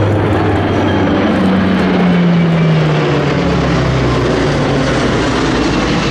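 A P-3 Orion's four turboprop engines and a P-8 Poseidon's twin jet engines passing low overhead in formation: a loud, steady rumble of engines and propellers. A droning tone in it drops in pitch from about a second and a half in, as the pair go over.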